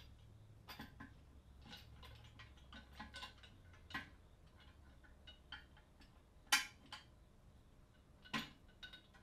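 Scattered small clicks, clinks and light knocks of objects being handled, with a sharper knock about six and a half seconds in and another near the end.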